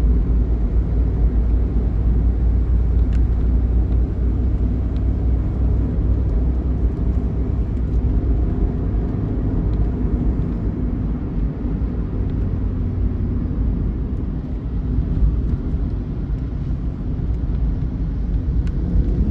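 Intercity bus at highway speed, heard from inside: a steady low engine and road rumble.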